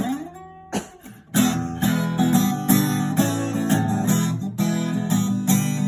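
Acoustic guitar strummed. A chord rings and dies away with a short bend in pitch, then steady rhythmic strumming starts again about a second and a half in.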